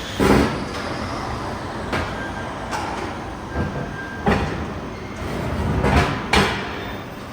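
Irregular metallic knocks and clanks of steel being worked, about six over a steady rumbling noise, the loudest early on and two close together near the end.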